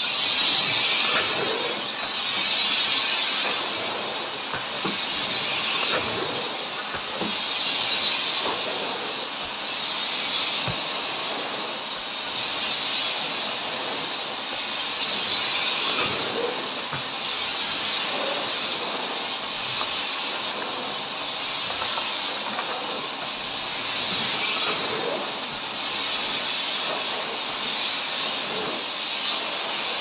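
Miele S800 canister vacuum cleaner running while its floor head is pushed back and forth over a rug. It makes a steady, high-pitched rushing hiss that swells and fades every couple of seconds.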